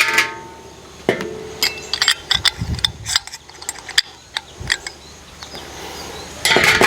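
Sharp little clicks and clinks of small metal and plastic kettle-grill parts being handled and fitted, coming thick and fast for a few seconds before easing off.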